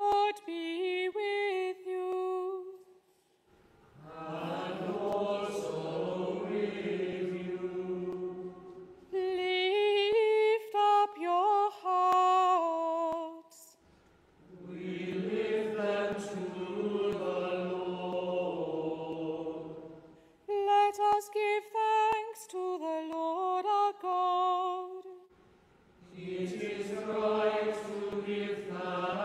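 Unaccompanied call-and-response singing: a solo voice sings an ornamented, wavering line, and a group of voices answers with a fuller, lower sound. The exchange happens three times.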